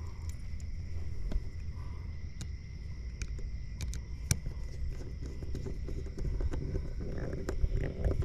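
Scattered small clicks and taps of a screwdriver tightening the ground terminal screw on an extension cord's plug end, over a steady low background rumble and faint steady high tones.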